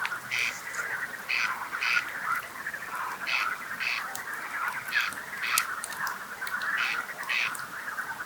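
A chorus of frogs croaking without a break, with louder calls coming in pairs about every two seconds. Sharp crackles from a campfire come through now and then.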